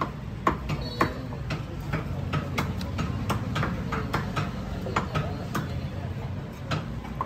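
Irregular sharp knocks and clacks, about two or three a second, over a low steady rumble, from chicken pieces and a steel bowl being handled on a butcher's block.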